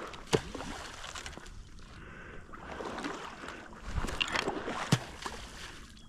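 Someone wading through shallow water and thick mud, water sloshing and splashing around the legs, with a few sharp knocks, once about half a second in and twice near the end.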